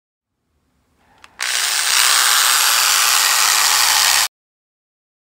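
Dremel rotary tool fitted with a coarse black abrasive stripping disc: a click, then the tool running loud and steady at speed for about three seconds before cutting off abruptly.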